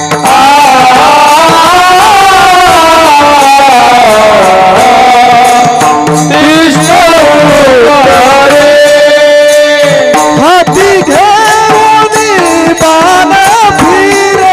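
Kirtan music: a voice singing long, held notes that glide slowly in pitch, over instrumental accompaniment with tabla.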